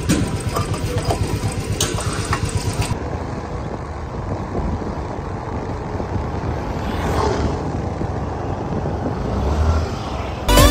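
Vehicle engine running with road noise, pulsing quickly for the first few seconds and then steadier. Background music starts just before the end.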